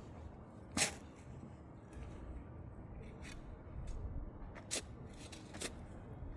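Digging in soil with a hand tool: a few short, sharp scrapes and crunches of the blade into the dirt, the loudest about a second in and two more near the end, over a low rumble.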